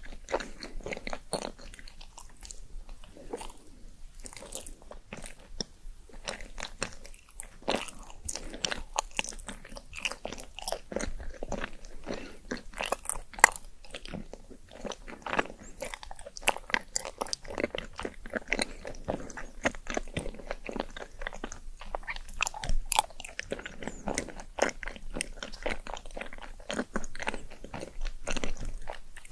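Close-miked eating: a steady run of crunchy bites and chewing, with many small sharp crackles.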